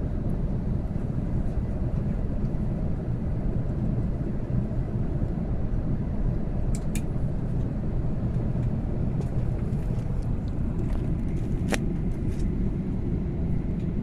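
Steady low rumble of airliner cabin noise heard from inside an Airbus A380 in flight: engines and airflow. A few faint clicks come about halfway through and again near the end.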